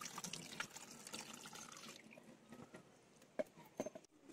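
Chicken mince being washed by hand in water: faint sloshing and dripping, with a couple of sharp clicks about three and a half seconds in.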